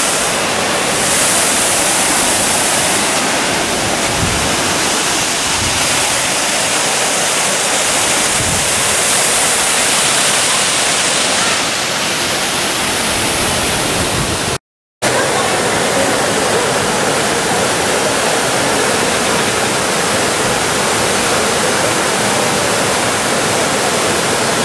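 Steady rush of falling water from the Oval Fountain (Fontana dell'Ovato) cascade, cutting out briefly about 15 seconds in.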